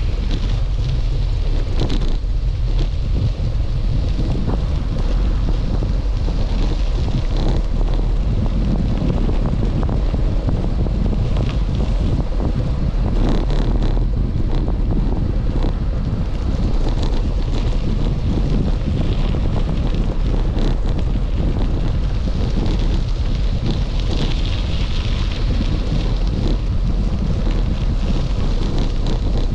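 Steady, loud wind buffeting on an action camera's microphone while moving.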